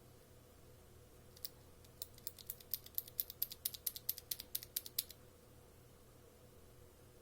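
OUTEMU mechanical keyboard switches being pressed: a single click, then a quick run of typing clicks for about three seconds that stops suddenly.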